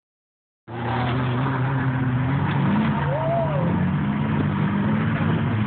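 A motor vehicle's engine running with a slightly wavering pitch.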